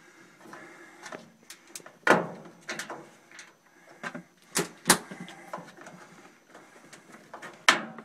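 Sharp plastic clicks and knocks from a washing machine's pressure switch as its clip tabs are pressed in and it is worked loose from its square mounting hole in the cabinet. There are several separate clicks, the loudest about two seconds in, a close pair near the middle and one near the end.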